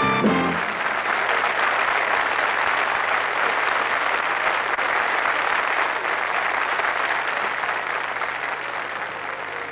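Studio audience applauding steadily, dying away near the end. A short musical flourish cuts off about half a second in.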